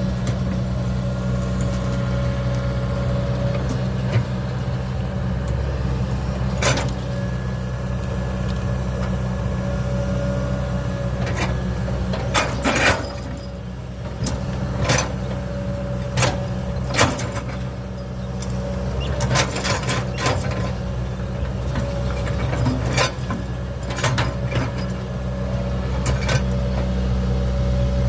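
Hydraulic excavator's diesel engine running steadily, with a dozen or so sharp knocks and clanks spread throughout as rocks are shifted and buried.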